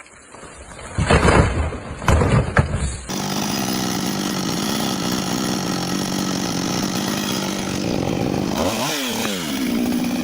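Two loud crashes, then a chainsaw running at a steady high speed. Near the end its engine is revved up and down several times.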